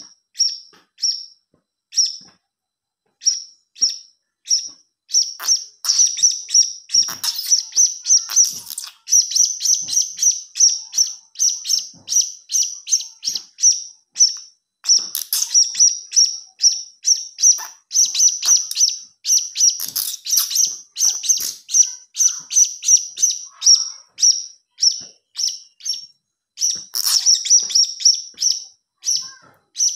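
Serindit (hanging parrot) chick calling: a fast, continuous series of short, high-pitched chirps, several a second, with a few brief pauses near the start. It is the begging call used as a lure call for serindits.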